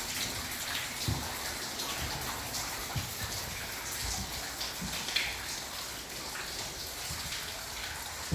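Rain falling steadily, with scattered louder drips and a few soft low thumps.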